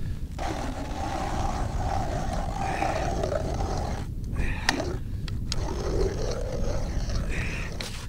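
Hand ice auger grinding through lake ice as it is cranked, in two spells with a short break about four seconds in.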